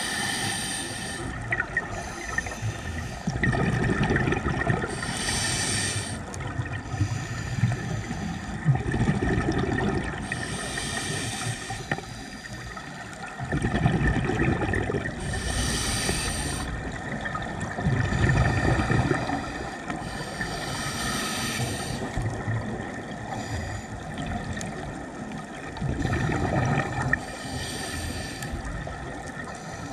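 Underwater breathing of a scuba diver through a regulator: a hissing bubble burst of exhaled air about every five seconds, with a low rumbling of water between them.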